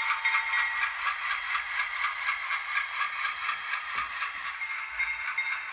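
HO scale model Alco diesel locomotive's sound decoder playing a running diesel engine through its small onboard speaker, a steady thin, buzzy tone with a rapid even beat. Light clatter of the model running on the track comes with it, and there is a faint knock about four seconds in.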